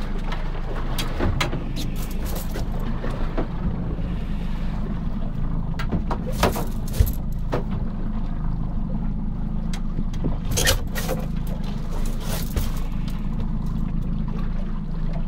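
Fishing boat's engine running steadily at low revs, a constant low hum, with a few short knocks on top.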